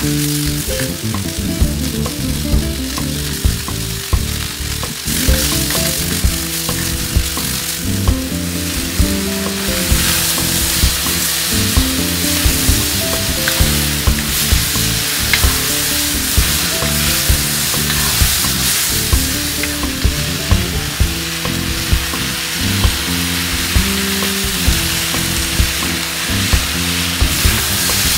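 Vegetables sizzling hard in hot peanut oil in a cast iron wok as they are stir-fried, with sharp clacks of the utensil against the wok about once a second.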